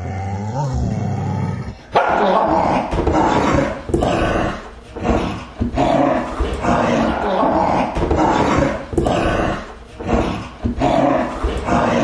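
Dog barking over and over in rough, forceful barks, roughly one a second, starting about two seconds in after a brief wavering pitched sound.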